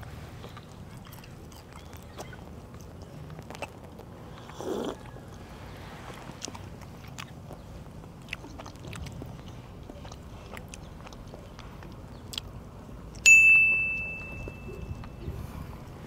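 Chewing and small clicks of tableware while eating. Near the end, a sharp clink of crockery rings out clearly and fades over about a second and a half.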